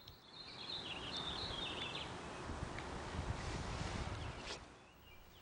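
Scraping and rustling as the top half of a Rain Bird 100DVF plastic sprinkler valve is worked free and lifted out of the valve box, lasting about four and a half seconds. Birds chirp faintly during the first two seconds.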